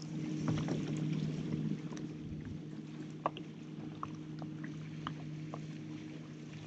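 A boat motor humming steadily at a low, even pitch, with a few faint light clicks scattered through.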